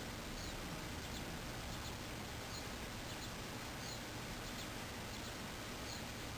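Steady windstorm noise, an even rushing haze, with short high bird chirps every second or two.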